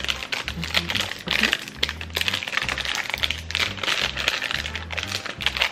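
Plastic snack wrapper crinkling and crackling in irregular bursts as it is pulled open by hand, over background music with a repeating bass line.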